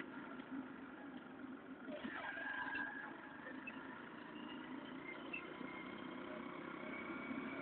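Steady vehicle running noise, a low engine and road hum with faint higher tones drifting over it.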